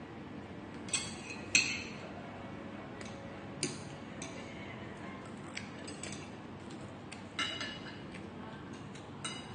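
Metal chopsticks and spoon clinking against ceramic plates: a scattered handful of short, sharp clinks, the loudest about one and one and a half seconds in and another a little after seven seconds.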